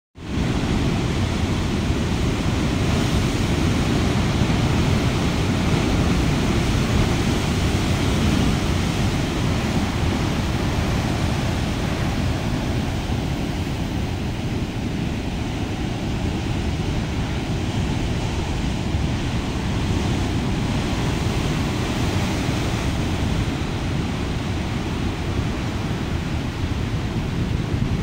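Heavy ocean surf breaking over rocks: a steady, dense rumble of crashing waves and churning foam.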